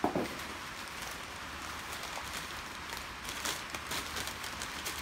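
Rain pattering steadily on the workshop roof, with a sharp knock right at the start and some rustling of a cloth rag being handled later on.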